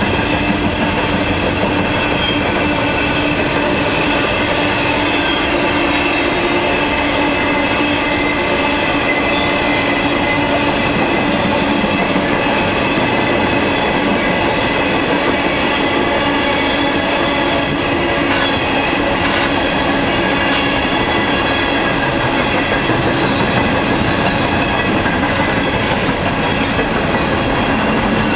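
A long freight train of empty coal hopper cars rolling steadily past at speed: a continuous rumble and clatter of wheels on rail, with steady high-pitched ringing from the wheels. A low hum fades away about halfway through.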